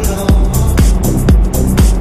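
Background electronic dance music with a steady kick drum at about two beats a second and bright hi-hats between.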